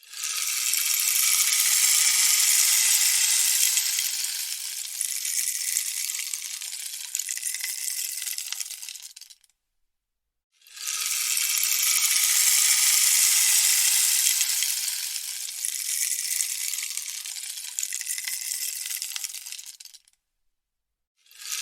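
Rainstick tipped over twice, each time its beads trickling down the tube in a bright, hissing cascade that swells in the first couple of seconds and slowly tapers off over about nine seconds. A second of silence comes between the two pours, and a third pour starts right at the end.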